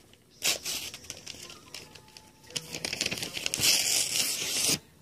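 Crinkly material being handled and torn close to the microphone while a toy cast for a doll is made. There is a short burst about half a second in, then a longer, louder stretch of crinkling and ripping that stops abruptly near the end.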